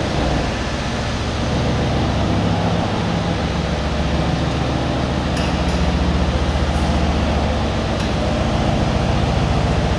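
Mercedes-AMG C63 S Coupe's 4.0-litre twin-turbo V8 running steadily at low revs as the car creeps into a parking bay, heard in an underground car park.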